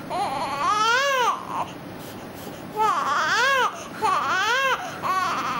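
Infant crying in short wails, each rising then falling in pitch. One wail of about a second at the start, a pause of a second and a half, then three more in quick succession.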